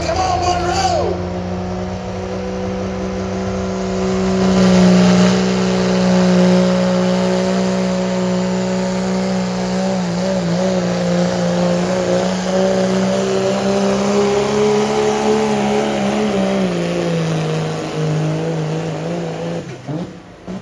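Turbocharged diesel pickup running at full throttle under load while pulling a sled. Its engine note holds steady, drops in pitch near the end, then cuts off abruptly.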